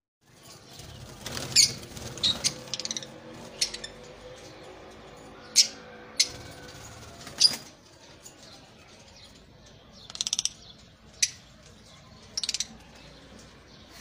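Lovebirds chirping, with sharp high single calls scattered throughout and two quick chattering runs of calls in the second half.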